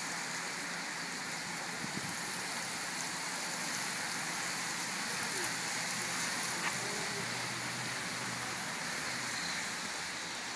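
Steady hiss of rain falling on a wet road.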